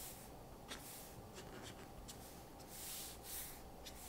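Prismacolor marker tip dabbing and stroking on paper: a faint series of short scratchy swishes as leaf touches are laid down, with a denser run of strokes about three seconds in.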